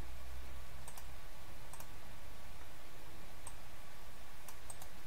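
Computer mouse buttons clicking about eight times, several in quick pairs, over a faint steady low hum.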